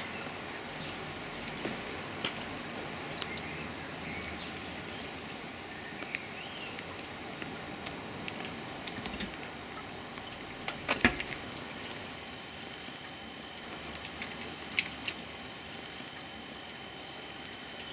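Air bubbling up through the water in a water-filled dustbin as a fridge compressor pumps compressed air to a submerged plastic pop bottle, with scattered small clicks and one sharper click about eleven seconds in. A faint steady high tone starts about twelve seconds in.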